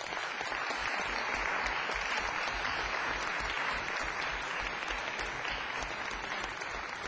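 Audience applauding steadily in a lecture hall, sustained clapping that begins to ease off near the end.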